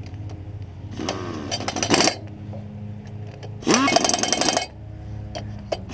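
Pneumatic impact gun running bolts down on a disc mower's cutter bar in two short bursts of about a second each, each one winding up quickly and then rattling.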